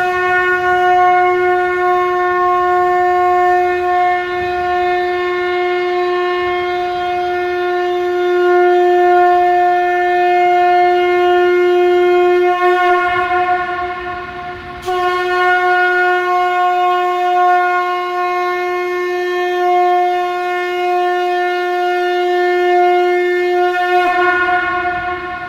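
A conch shell (shankh) blown in two long, steady, unwavering blasts on one note, the first about fourteen seconds long, the second about ten, with a short break for breath between them.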